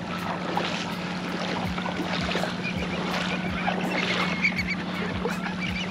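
Shallow bay water sloshing and splashing around people wading, under a steady low hum, with faint high chirps in the second half.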